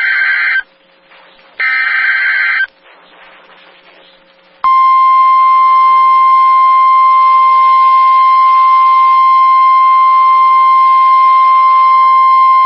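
The last two bursts of a NOAA Weather Radio SAME digital header, buzzy data bursts about a second long and a second apart. After a short gap comes the steady 1050 Hz Warning Alarm Tone, starting about five seconds in: the signal that a warning, here a tornado warning, is about to be read.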